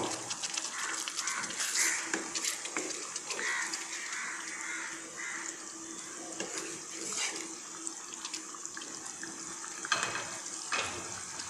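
Watery egg masala simmering and bubbling in a hot wok, with a spatula stirring through the curry; a few sharper knocks near the end.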